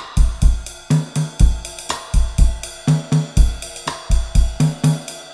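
Background music with a steady drum-kit beat: a deep kick drum about twice a second under hi-hat and a bass line.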